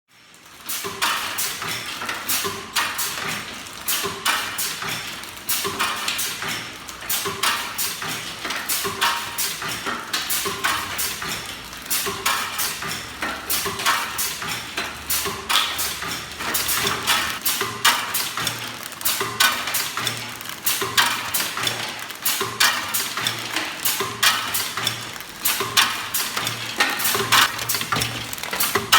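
Automatic form-fill-seal packaging machine running, with a dense, continuous clatter of clicks and knocks from the mechanism and the crackers it handles.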